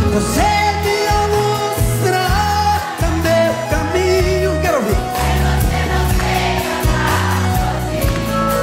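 A male lead vocal singing a slow sertanejo love song with a live band, the voice gliding between long held notes over acoustic guitar and a walking bass line.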